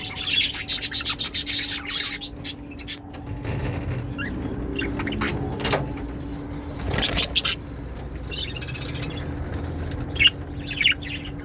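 Lovebirds chattering with rapid high chirps for the first two seconds, then a few knocks and clicks and short chirps again near the end, over a steady low hum.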